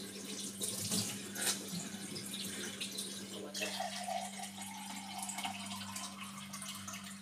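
Kitchen cold-water tap running into the sink, a steady splashing stream left running to clear stale-tasting water before drinking. About halfway through, a hollow tone joins the splashing.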